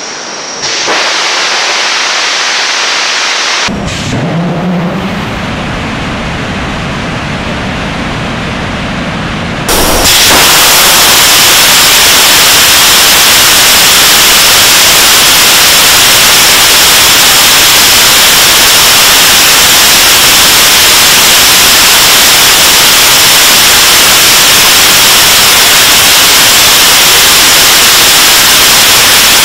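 Nuri rocket first stage's cluster of four 75-tonne-class kerosene and liquid-oxygen engines in a static firing test. A hiss and then a lower rumble with a wavering tone give way, about ten seconds in, to a sudden, steady, very loud roar at full thrust, loud enough to overload the microphone.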